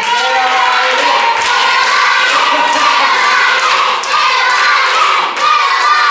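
A group of children singing loudly together in high voices, with hands clapping along.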